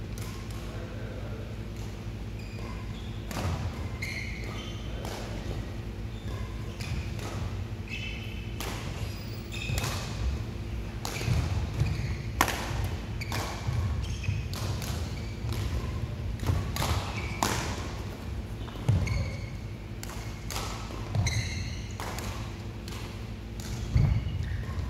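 Badminton rally: sharp, irregular racket strikes on the shuttlecock, mixed with short high squeaks of shoes on the court mat. A steady low hum runs underneath.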